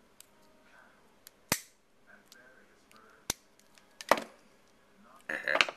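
Metal shells of RS-232 connectors snapping as they are pried loose with a tool: three sharp snaps, then a short burst of scraping and rattling near the end.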